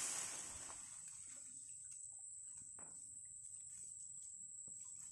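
A steady high-pitched insect buzz from the surrounding grass, with a brief rustle at the start and a few faint clicks and squelches of a hand working in a muddy, water-filled hole.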